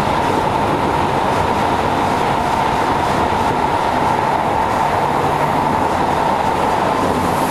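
Kyoto Municipal Subway Tozai Line 50 series train running steadily through the tunnel, heard from inside the car: an even roar of wheels on rail with a steady higher hum over it.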